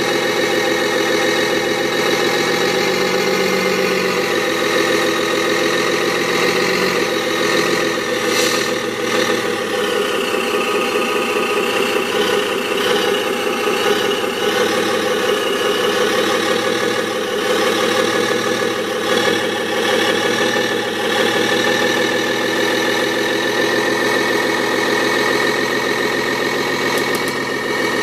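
RC pickup truck's electronic engine-sound module playing a simulated truck engine idling steadily through its small speaker, with a few brief shifts in pitch part-way through.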